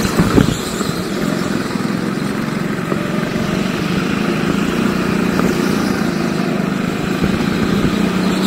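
Rental go-kart engine running at a steady pitch, with a sharp knock just after the start.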